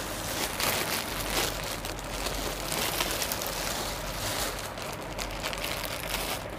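Irregular rustling and crinkling of a packed ladies' suit and its wrapping as it is unfolded and handled.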